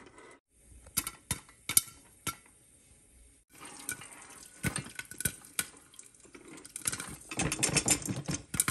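Popcorn kernels popping in a covered pan with a crank-handled popcorn lid: sharp single pops over a sizzling hiss, a few at first and coming thick and fast near the end.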